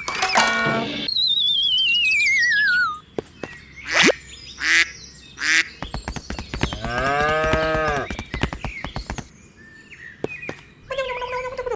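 Cartoon-style sound effects: a wavering whistle sliding down in pitch, a few quick chirps, then a cow mooing in one long call about six seconds in.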